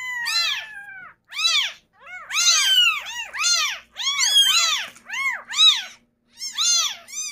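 Several newborn kittens mewing over and over, short high calls that rise and fall, one or two a second and sometimes overlapping. They are hungry abandoned kittens calling to be fed.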